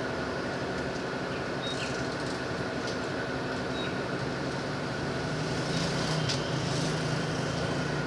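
Diesel locomotive approaching slowly along a station track, its engine running with a steady low drone that grows a little louder after about five and a half seconds.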